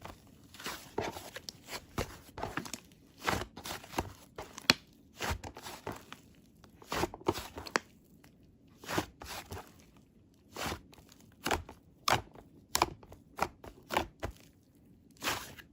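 Hands pressing and squishing a strawberry whipped-cream clay slime, making irregular sticky clicks and pops, a few a second with short pauses.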